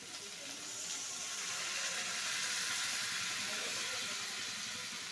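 Water poured into a hot pan of fried masala, hissing and sizzling as it goes in, to make the curry's gravy. The hiss builds over the first couple of seconds, then eases off a little.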